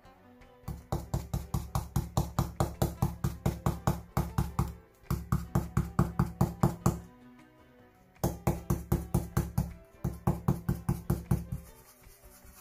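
Stencil brush loaded with black paint being pounced quickly and evenly through a plastic stencil onto the board: fast runs of knocks in four bursts, with short pauses between them.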